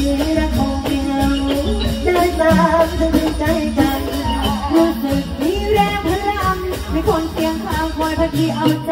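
Live Thai likay theatre music: a melodic ensemble playing over a steady percussion beat.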